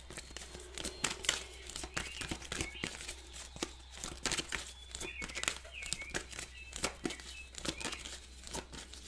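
A deck of tarot cards being shuffled by hand: a quick, uneven run of light papery snaps and clicks as the cards slide and tap against each other.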